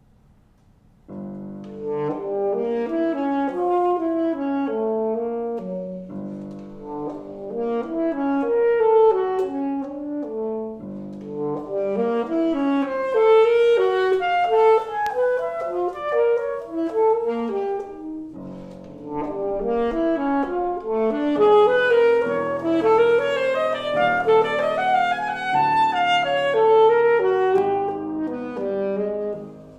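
Alto saxophone and grand piano playing a slow, lyrical prelude. The music begins about a second in and moves in phrases that swell and ease back, with the piano's low notes under the saxophone's line.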